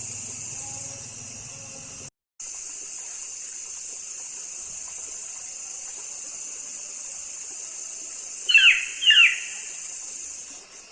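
Two short, loud animal calls about half a second apart, each sweeping downward in pitch, over a steady high hiss: the strange sound heard at the edge of a fish pond, of unknown source.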